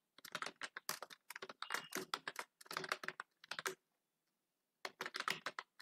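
Keystrokes on a computer keyboard, typing in quick runs of clicks, with a pause of about a second a little past the middle.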